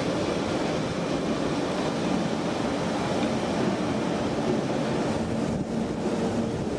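Passenger train hauled by an electric locomotive pulling out slowly, its coaches rolling past with a steady rumble of wheels on rail.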